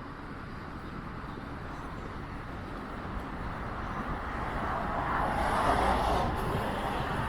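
A road vehicle passing by. Its noise builds gradually, peaks about five to six seconds in, then starts to fade, over a constant low outdoor rumble.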